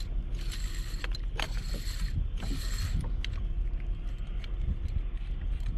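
A heavy, uneven low rumble of wind and water against the fishing kayak, with a mechanical whirring that comes and goes and a few sharp clicks from tackle being handled.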